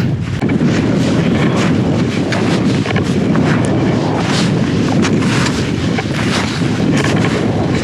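Strong gusting wind buffeting the microphone: a heavy, rough rumble broken by many sharp thumps and crackles.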